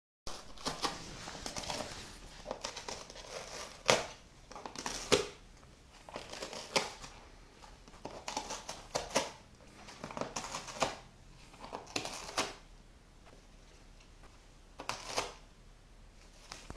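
Cat biting and tearing at a cardboard box, short crunching rips coming in irregular bursts with pauses between.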